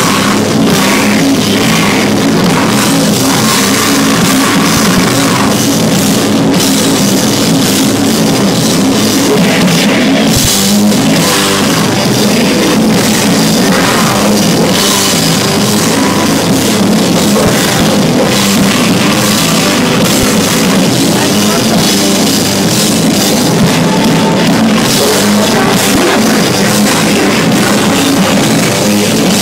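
Rock band playing live at full volume, drum kit and electric guitars, heard from within the crowd.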